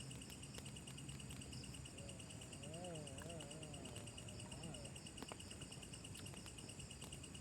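Evening chorus of crickets and other insects: a steady, finely pulsing high trill. About two and a half seconds in, a brief wavering pitched sound rises and falls for about two seconds.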